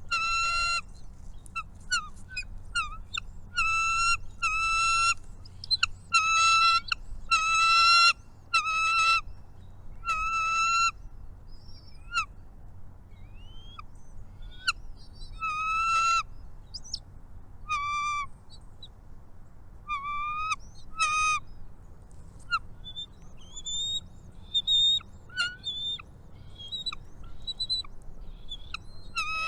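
Birds at a nest calling: a string of short, repeated nasal calls about once a second, becoming sparser after about ten seconds, with thin chirps in between.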